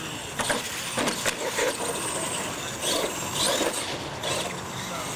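Radio-controlled monster truck driving on concrete, its motor and tyres making a string of short bursts of noise as the throttle is worked.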